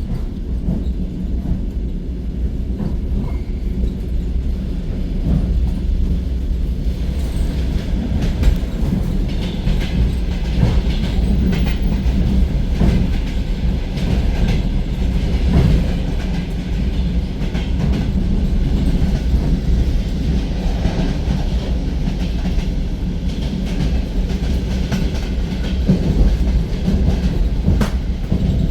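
Suburban electric train running along the line, heard from inside the carriage: a steady low rumble with the clickety-clack of the wheels over the rail joints, a little louder from about six seconds in.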